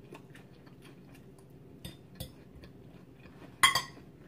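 Eating sounds: a metal fork clicking and scraping on a plate and chewing of salad, many small clicks, with one louder, sharp, briefly ringing sound about three and a half seconds in.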